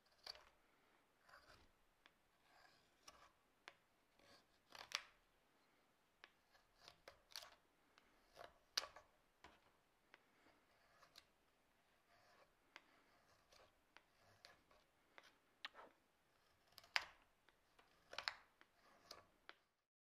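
Curved carving knife slicing shavings from a wooden beam: about twenty short, crisp cuts at irregular intervals, with faint scraping between them.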